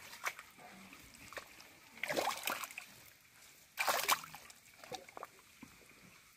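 A hand squelching and sloshing in shallow muddy water, with two louder splashes, about two and about four seconds in.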